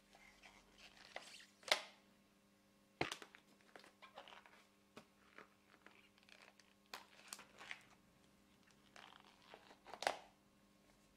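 Blue nitrile gloves being stretched over the rims of plastic cups of paint to seal them: irregular rubbery rustling with sharp clicks from the glove and cup handling. The loudest clicks come about two and three seconds in and again near the end.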